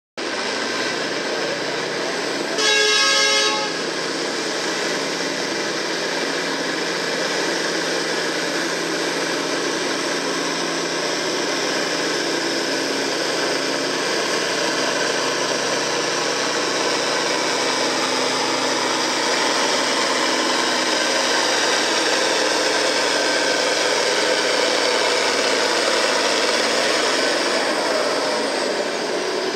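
Farm-stock International Harvester tractor's diesel engine running hard under load, pulling a weight-transfer sled, a steady heavy drone throughout. About three seconds in, a short horn blast sounds over it for under a second.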